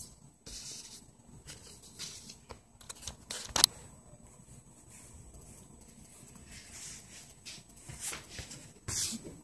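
Sheets of paper being handled and rustled in short scattered bursts, with one sharp click about three and a half seconds in.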